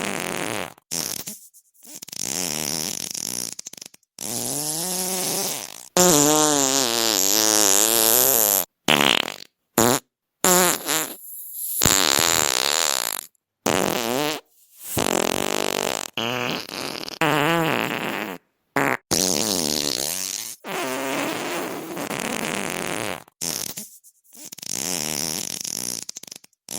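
Fart sounds, one after another: about fifteen separate farts of differing lengths, each cut off by a brief silence. The longest and loudest, about six seconds in, lasts nearly three seconds with a wavering, wobbling pitch.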